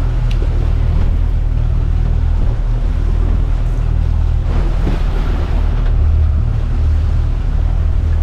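Boat engine running with a steady low drone, with water rushing and splashing along the hull and wind buffeting the microphone.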